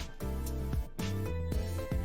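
Background music with a steady beat and held, guitar-like notes.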